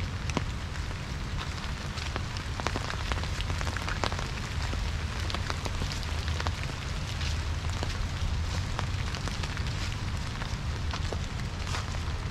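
Light rain pattering in irregular drops, with a steady low rumble underneath.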